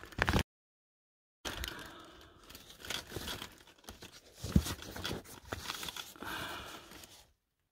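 Rustling and crinkling as a leather bag and the papers inside it are handled, with one sharp bump about halfway through. The sound drops out completely for about a second near the start.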